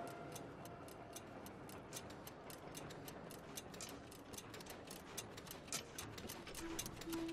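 Clock ticking: many uneven, overlapping ticks, about six a second, as from several clocks at once. A low steady note comes in near the end.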